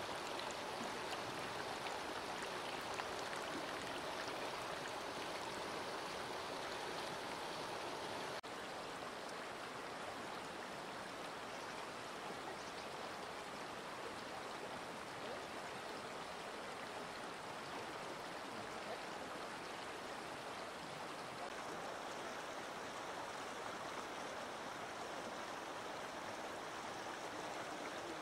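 A fast, shallow river rushing steadily over rocks, a continuous hiss of water, a little quieter from about eight seconds in.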